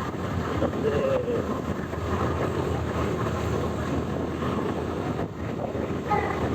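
Tour bus driving along the road: a steady rumble of engine and road noise, with a faint wavering tone about a second in.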